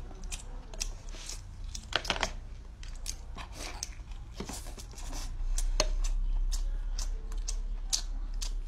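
Scissors cutting through crisp fried chicken cutlet: a scattered run of sharp snips and crunches. A low steady hum sits underneath and grows louder about halfway through.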